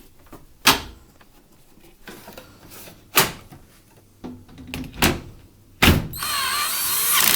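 A few sharp clunks and knocks as the washing machine's panels are fitted back on, then, about six seconds in, a cordless power screwdriver runs briefly, driving in a screw.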